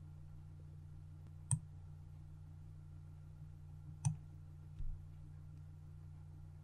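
Computer mouse clicking twice, single sharp clicks about two and a half seconds apart, with a soft low thump shortly after the second, over a faint steady low hum.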